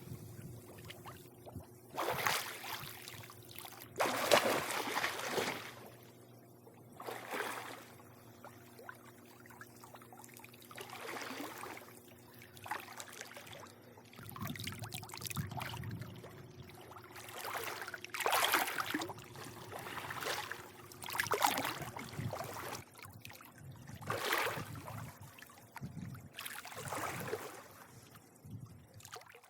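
Swimming-pool water lapping and splashing in irregular swells every two or three seconds, over a faint steady hum.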